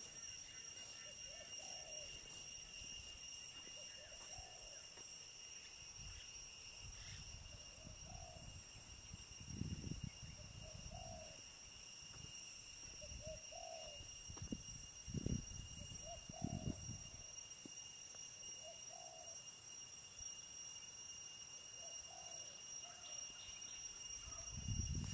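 A bird giving a short, dove-like call over and over, about every two seconds, over a steady high-pitched whine. A few low thumps come in the second half.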